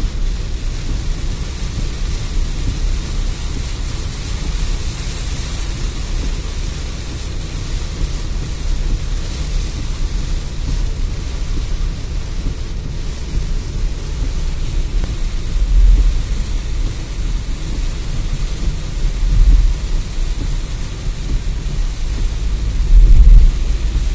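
Heavy rain beating on a car's windshield and body, heard from inside the car, over a steady low rumble. Three louder low surges come in the second half.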